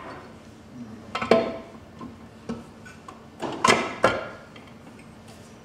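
Aluminium Toyota C64 gearbox case knocking and clinking against the bellhousing and shafts as it is lowered and seated: a few sharp metallic knocks with a short ring, once about a second in and again in a quick cluster between three and a half and four seconds.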